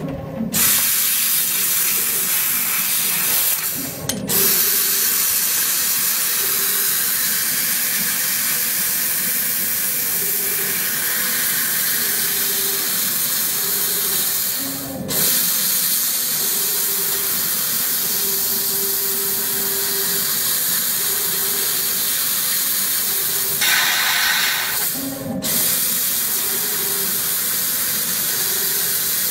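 Laser tube-cutting machine's cutting head hissing steadily as the beam and assist gas blow through a polished steel round tube turning in the rotary chuck, with a low hum that comes and goes. The hiss breaks off briefly a few times.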